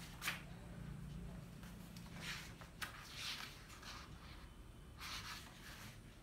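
Quiet rustling and scraping of paper being handled at a desk: a few short, separate scrapes, with a faint low hum in the first half.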